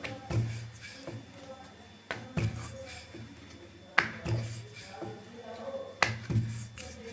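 Wooden rolling pin on a round wooden board (belan and chakla) rolling out a paratha: sharp wooden knocks about every two seconds, sometimes in pairs, each followed by a low rolling rumble as the pin passes over the dough.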